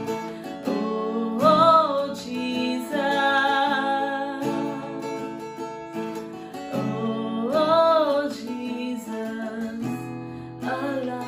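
Slow worship music led by strummed acoustic guitar, with a wavering melody line that swells twice.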